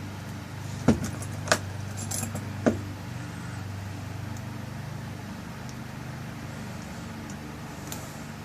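Sharp metallic clicks and clinks of a pin-tumbler lock cylinder being handled as its tail piece is screwed back on, four within the first three seconds and one more near the end, over a steady low hum.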